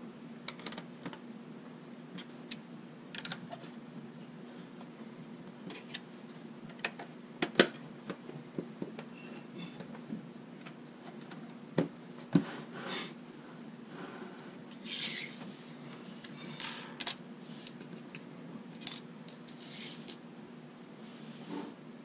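LEGO bricks being handled and pressed onto a baseplate: scattered small plastic clicks and taps, with a few sharper snaps around the middle and short rustles of pieces being picked from a pile. A steady low hum sits underneath.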